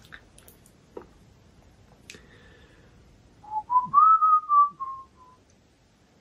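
A man whistling a short phrase of a handful of notes about three and a half seconds in, stepping up in pitch and then drifting gently down. A couple of faint clicks come before it.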